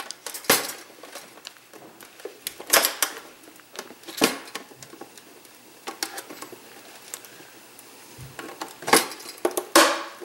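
A small flat screwdriver prying at a toaster's control knob, its blade clicking and scraping against the stainless steel body and the plastic knob. Sharp separate clicks and scrapes a second or two apart, the loudest two near the end.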